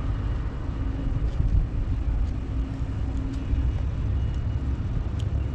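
Steady low outdoor rumble with a faint hum in the middle and a few faint clicks.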